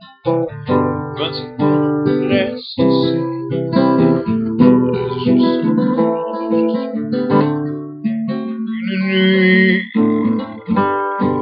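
Acoustic guitar strumming and picking chords, each struck note dying away before the next.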